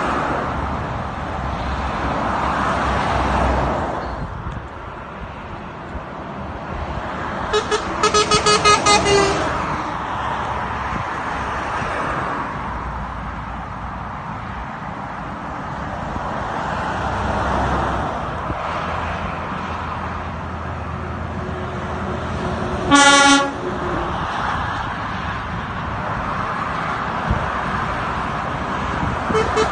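Dual-carriageway traffic passing below, a steady rush of tyres and engines. A vehicle horn sounds twice: a run of quick pulsing toots about eight seconds in, and a single short, loud blast about twenty-three seconds in.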